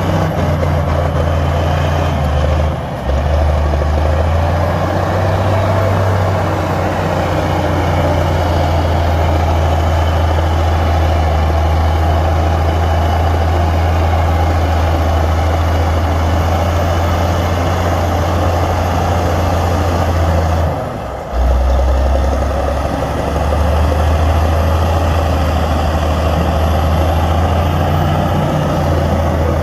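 Heavy diesel engine of earthmoving machinery running steadily, with a low drone that dips briefly twice, about three seconds in and again about two-thirds of the way through.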